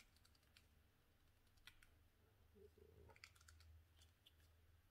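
Near silence, with faint scattered clicks of small plastic parts being handled as an adapter piece is fitted onto a small Eheim aquarium pump.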